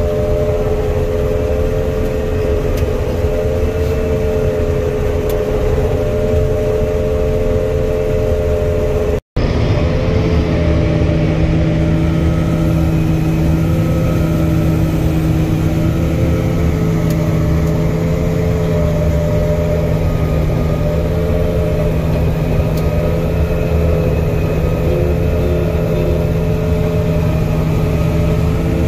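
Combine harvester running steadily while harvesting soybeans: a constant machine hum with several steady whining tones. The sound breaks off for an instant about nine seconds in and resumes with a lower steady tone added.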